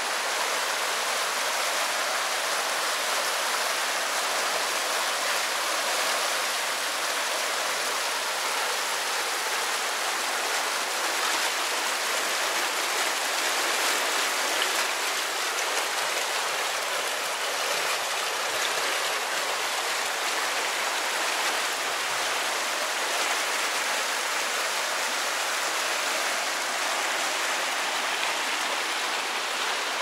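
Canal water rushing steadily through a sluice gate, an even roar of falling water.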